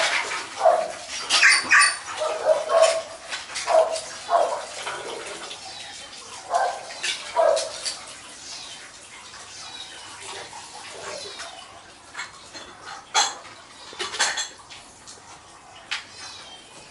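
Kittens mewing, short high calls repeated every second or so, thinning out after about eight seconds. A few sharp clicks come near the end.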